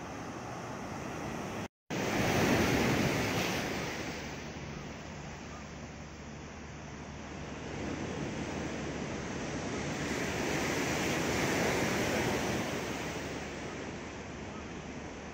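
Ocean surf breaking and washing against concrete tetrapod breakwater blocks, swelling louder about two seconds in and again around ten to twelve seconds in. The sound cuts out for a moment just before the first swell.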